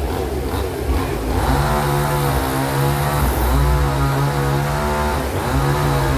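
Steady chainsaw-like buzzing drone with many overtones, its pitch wavering up and down.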